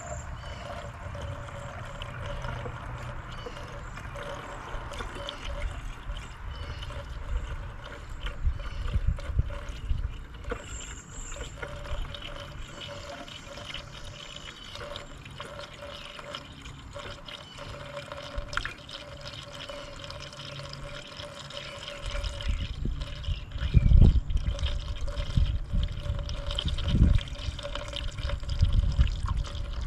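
Coolant pouring from an upside-down jug through a plastic funnel into a car's coolant tank, a steady trickling fill. From about two-thirds through, low rumbling gusts come and go over it and are the loudest sound.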